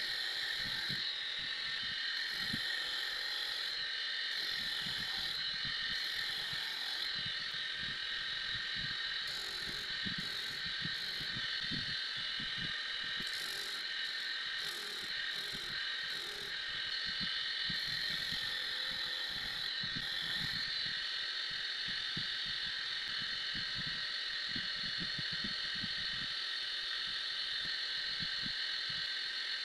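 Small homemade disc sander, a DC can motor driving a sanding disc, running with a steady whine, while a strip of white sheet material is pressed against the disc, giving intermittent scraping during roughly the first twenty seconds.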